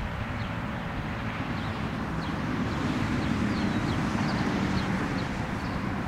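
The last of the Federal Signal 2001-130 siren's falling tone dies away right at the start, leaving outdoor ambience: low wind rumble on the microphone and scattered short bird chirps. A faint low hum swells about halfway through and fades near the end.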